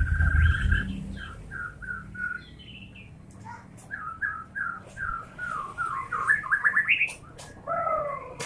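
White-rumped shama (murai batu) singing: runs of short, clear whistled notes in quick series, climbing higher about six to seven seconds in, then a few lower falling notes near the end.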